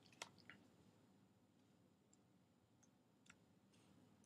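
Near silence: room tone with a few faint clicks, a small cluster in the first half second and another single click about three seconds in.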